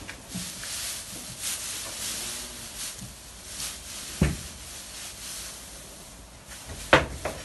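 Dry straw rustling and crackling as handfuls are pulled from a heap and tossed, with a dull knock about four seconds in and a sharper clack near the end.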